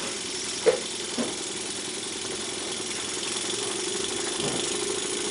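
Luton Bowman BM valveless model steam engine running steadily under live steam and driving a small dynamo, a fast even mechanical rattle over a steady hiss. Two brief short sounds come about two-thirds of a second and just over a second in.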